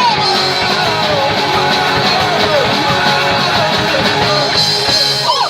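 Punk rock band playing live, with guitars and drums, loud and steady. The song stops abruptly at the very end.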